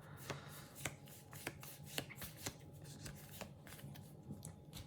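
Faint handling of paper stickers and sticker packets, a string of light irregular clicks and rustles as the stickers are flicked through.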